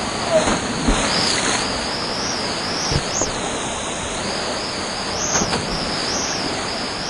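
Steady rush of a swollen canyon river pouring down a rock chute into a plunge pool, heard from right at the water surface with water sloshing close by. A few brief knocks stand out against the rush.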